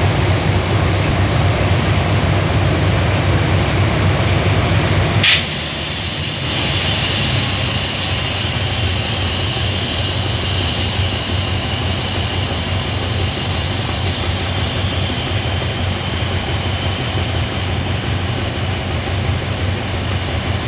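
GEA-class GE diesel-electric locomotive standing with its engine running, a steady low rumble. A sharp click comes about five seconds in, after which the sound drops a little and a steady high whine runs over the engine.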